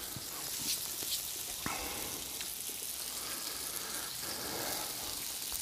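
Ribeye steak sizzling steadily on a hot Blackstone flat-top griddle, with a few short pops of spitting fat.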